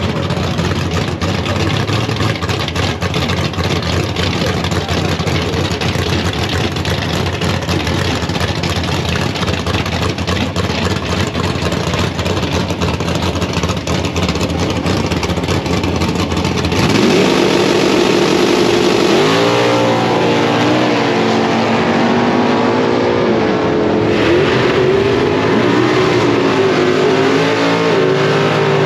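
Drag-racing car engines running loud: a dense, steady rumble, then from about two-thirds through an engine revving up and down in pitch.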